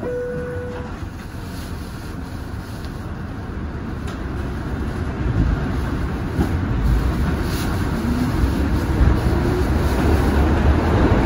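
R62A subway car: the lower note of a two-note falling chime fades out, then the train's wheels and traction motors rumble steadily louder as it gathers speed, with a faint rising motor whine near the end.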